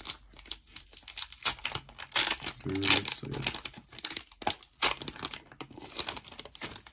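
Foil wrapper of a Pokémon trading-card booster pack crinkling and tearing as it is pulled open by hand, in a run of irregular crackles that are busiest a couple of seconds in.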